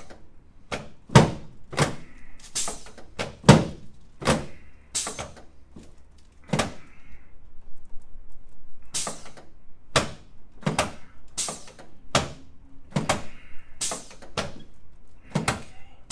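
A run of dull thumps, about one every three-quarters of a second with a short pause midway, during a chiropractic adjustment of a patient's sacroiliac joints on a treatment table.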